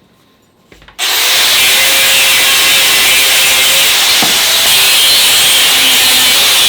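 A power tool cutting through the metal cross piece of a bicycle's handlebars: a loud, steady, hissing cut that starts abruptly about a second in.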